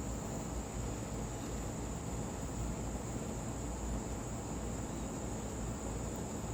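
Steady insect chorus, one continuous high-pitched buzz, over a low rumble.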